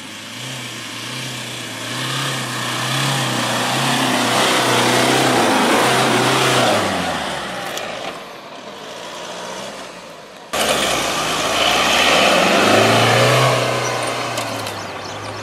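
Mahindra Scorpio SUV engine pulling hard up a steep dirt hill track, heard from inside the cabin, with a steady noise of tyres and body over the rough ground. The engine note sinks about halfway through, then the sound jumps abruptly and the engine is pulling again.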